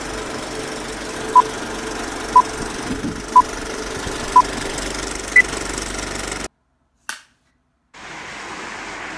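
Countdown-style electronic beeps: four short beeps a second apart, then a fifth at a higher pitch, over a steady machine-like running noise with a hum. It all cuts off suddenly about six and a half seconds in, followed by a single click, and a different steady background noise starts near the end.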